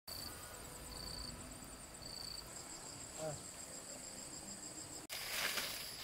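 Forest insects trilling: a steady high-pitched chirring chorus, with a few short pulsed calls early on. A brief pitched call comes a little past three seconds in. About five seconds in there is an abrupt cut to a different insect chorus, with a short rustle.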